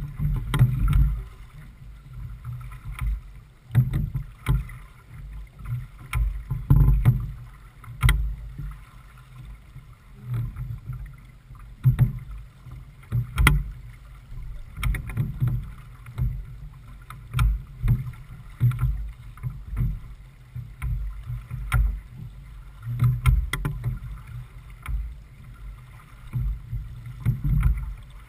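Wind buffeting the microphone in uneven low gusts aboard a J/24 sailboat under sail, with scattered sharp knocks and water slaps against the hull as it sails through chop.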